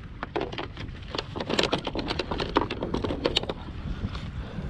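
Fishing pliers and gear being handled on a plastic kayak: a quick, irregular run of sharp clicks and taps that stops after about three and a half seconds.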